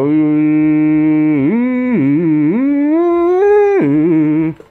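A man's drawn-out wordless voice, one long held tone that wavers in the middle and then slides up in pitch before cutting off. It is a modulation test into a CB radio microphone, pushing the amplifier's output up on the watt meter.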